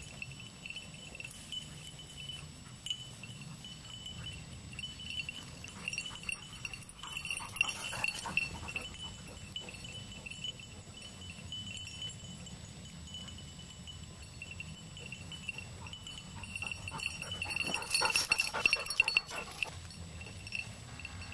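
Small bell on a hunting dog's collar jingling steadily as the dog works through scrub, louder around eight seconds in and again near the end.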